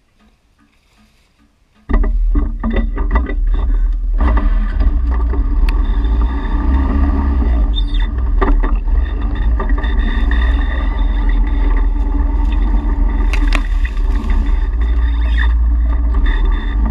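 A vehicle engine running close by, loud and steady, cutting in suddenly about two seconds in.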